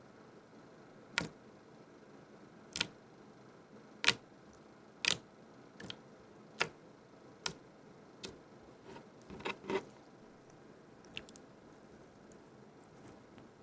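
Slime being squeezed and handled, giving a string of sharp, short clicks and pops at uneven gaps of about a second, with a quick double pop about ten seconds in.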